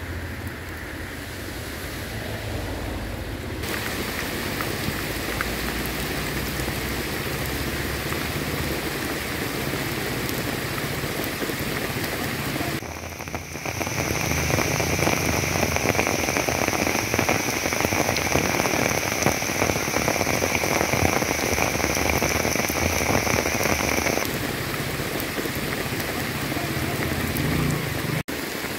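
Heavy rain falling steadily on floodwater and foliage. Through the middle stretch a steady high-pitched drone sits over the rain.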